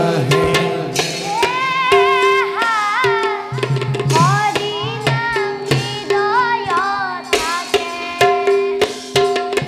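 Live stage-play music: a singer's ornamented, wavering melody over regular hand-drum strokes and steady held notes underneath.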